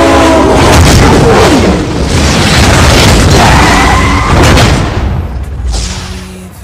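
Loud cinematic boom and a long rumbling wash of noise with heavy bass, over trailer music. It fades out in the last second or so.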